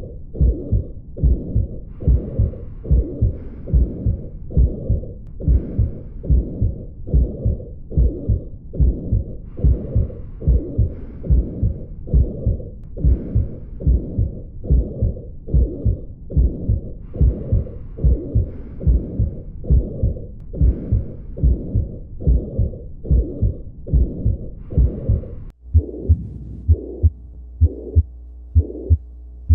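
Human heart heard on auscultation: regular lub-dub beats with a holosystolic murmur filling the gap between them, the typical apical murmur of mitral regurgitation. About 25 seconds in, the recording changes abruptly and the beats continue over a steady hum.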